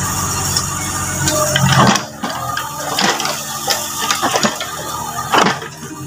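Mini excavator running steadily. About two seconds in its low rumble drops away, leaving a lighter sound with scattered knocks.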